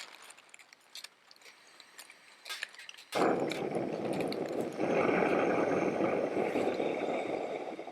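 A few small clicks, then about three seconds in a backpacking stove lights and burns with a steady hiss, heating a pot of water to the boil.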